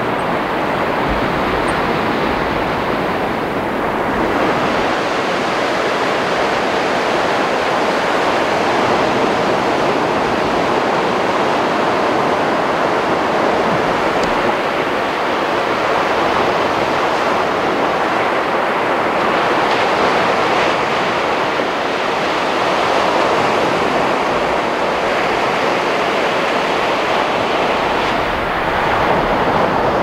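Ocean surf breaking on a beach: a steady rush of waves that swells and eases.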